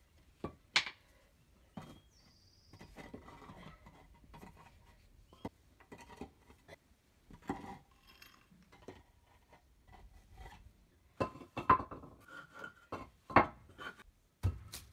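Concrete pavers clinking and scraping as they are handled and set down on sand, with sharp knocks from a hammer tapping them into place. The loudest knocks come in a cluster near the end.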